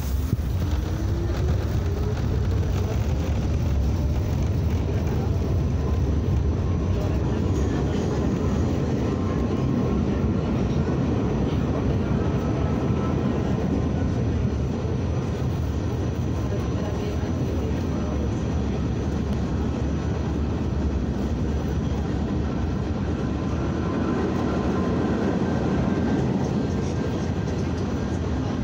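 Steady rumble and rattle of a New York City subway car running along the track, heard from inside the car. A rising whine in the first few seconds comes from the train picking up speed.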